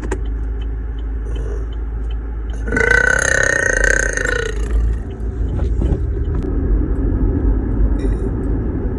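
A woman's long, loud burp of about two seconds, starting near three seconds in, over the steady low rumble of a car.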